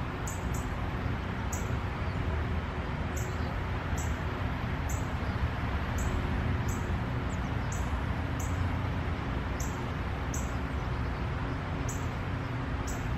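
Steady low hum and hiss of background noise, with a short, high, falling chirp repeated about once a second.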